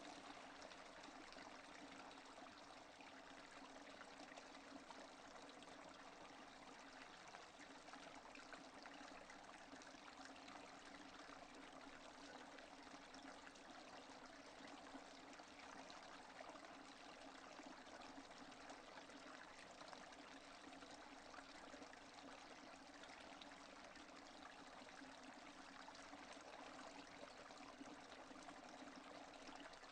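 Steady rain falling, a faint, even patter of drops with no thunder.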